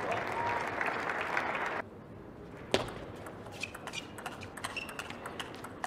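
Arena crowd applauding, cut off abruptly after about two seconds. Then a table tennis rally: the celluloid ball clicks sharply off the rackets and table, with one loud hit about a second after the cut, and occasional short squeaks of shoes on the court floor.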